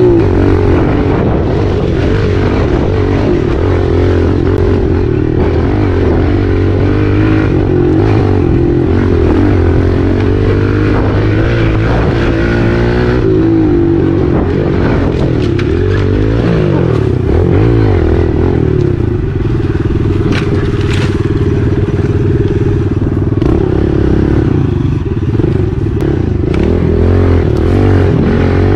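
Four-stroke dirt bike engine being ridden along a trail, its revs rising and falling, heard up close from a helmet camera. A few sharp clicks come about two-thirds of the way through.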